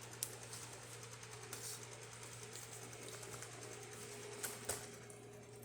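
Faint steady hum from an espresso machine during a hot-water test, with a few light clicks.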